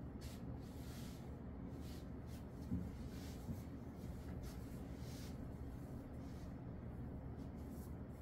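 Soft, irregular swishes and dabs of an ink brush on paper, over a steady low room hum, with a brief soft thump about three seconds in.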